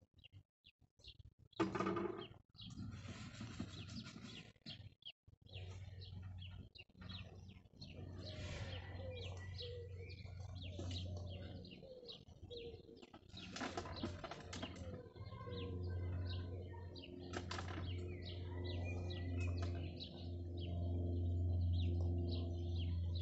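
Garden birds chirping and twittering, with a low steady hum underneath that comes in about five seconds in and grows stronger toward the end.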